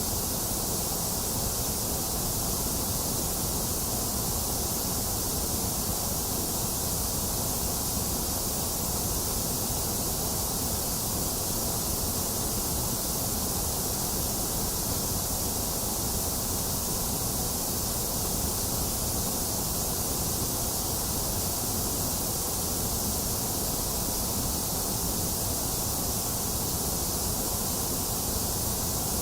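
Box fan running together with steady rain, with no thunder: an even, unchanging hiss, brightest in the highs, over a low rumble.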